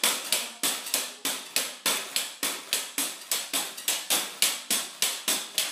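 Pogo stick bouncing steadily on a concrete floor: a sharp knock-and-rattle of the tip and spring with each landing, about three a second.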